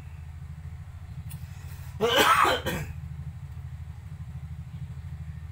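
A man clearing his throat once: a short, harsh burst a bit under a second long about two seconds in, over a steady low hum.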